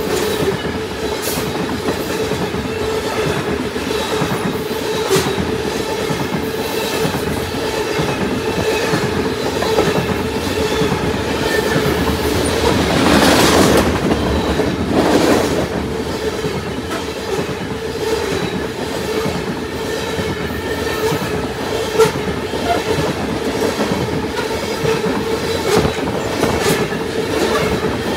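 Coal cars of a long freight train rolling past close by: a steady rumble and clickety-clack of steel wheels over the rail joints, with a steady wheel squeal underneath. The clatter swells louder about halfway through.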